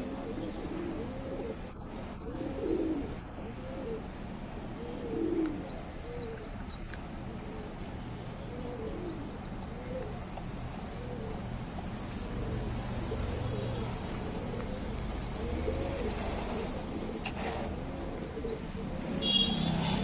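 Pigeons cooing over and over, mixed with clusters of short, high chirps from small birds.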